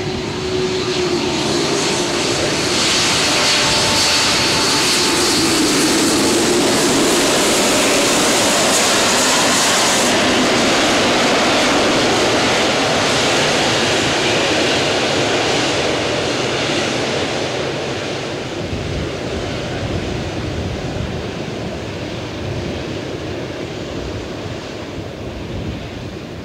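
Boeing 787 jet engines during the landing rollout. The noise swells to a loud, hissing peak about two seconds in and holds for several seconds, then its high hiss drops out and it eases off steadily as the airliner slows.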